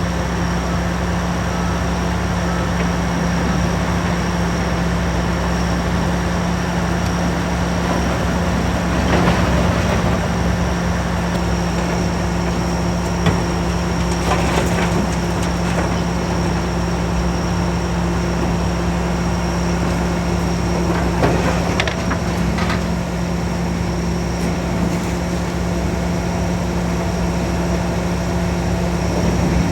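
Demolition excavator's diesel engine running steadily under load as it tears apart reinforced concrete, with several sharp cracks and crunches of concrete and rebar breaking, the loudest about a third of the way in and again near two thirds.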